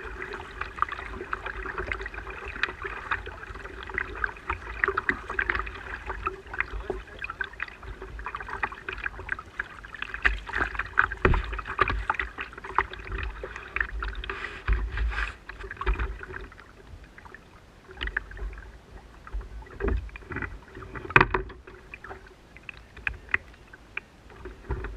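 Water splashing and lapping against a kayak's hull in irregular bursts, with wind gusting on the microphone.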